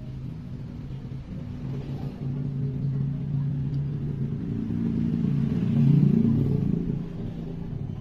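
A motor vehicle's engine running low and steady, growing louder to a peak about six seconds in with a rise and fall in pitch, then fading, as it passes by.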